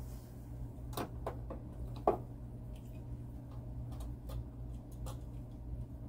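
Small motorized display turntable turning, with a steady low hum and light, irregular clicks and ticks; the sharpest click comes about two seconds in.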